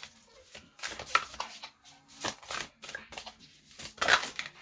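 Oracle cards being shuffled by hand: an irregular run of quick swishes and taps, loudest about a second in and again near four seconds in.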